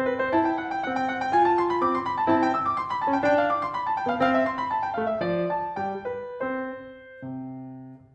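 Piano music playing flowing runs of notes, thinning out and getting quieter near the end.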